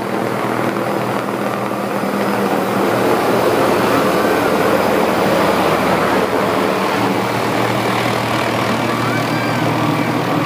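MD 500-series light helicopter with a five-blade main rotor, flying low overhead and coming down toward a landing. Its rotor and engine give a steady drone with a low hum, which grows louder about three seconds in as it passes close.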